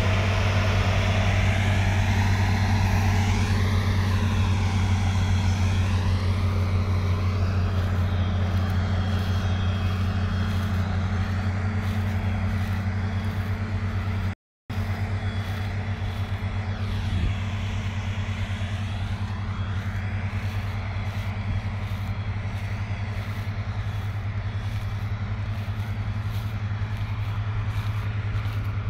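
Torum 780 combine harvester running at work, a steady low diesel drone. After a brief dropout about halfway through, a similar steady low engine drone continues.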